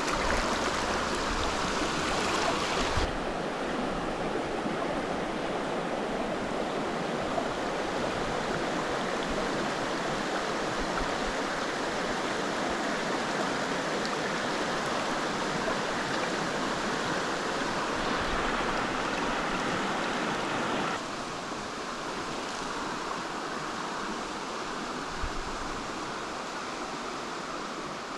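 Steady rush of a flowing stream, its tone changing abruptly about three seconds in and again about two-thirds of the way through.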